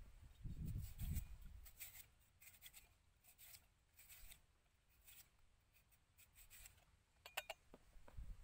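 Faint, soft cuts of a cleaver slicing through tomatoes held in the hand, as a series of quiet short clicks. The slices drop into a wooden mortar, and a sharper click near the end.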